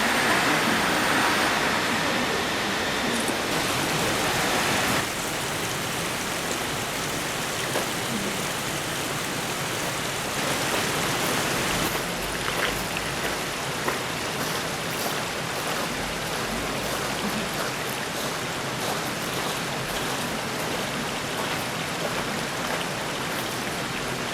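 Mountain river flowing, a steady rush of running water that drops a little in level about five seconds in.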